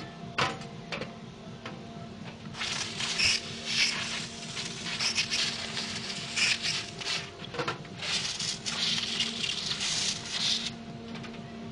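Compressed-air spray gun spraying paint in two long passes of steady hissing, with a click before each pass. A steady hum runs underneath.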